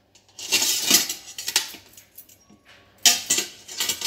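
Stainless steel wire steam rack clinking and rattling against the stainless steel inner pot of an Instant Pot as it is handled and lifted out, in two spells of clatter, the second starting about three seconds in.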